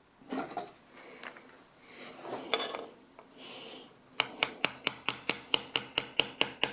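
A small hammer tapping a punch in a fast, even run of sharp metallic strikes, about six a second, drifting a pistol sight sideways into its dovetail on a 1911 slide. Quieter handling and scraping sounds come before the tapping starts, about four seconds in.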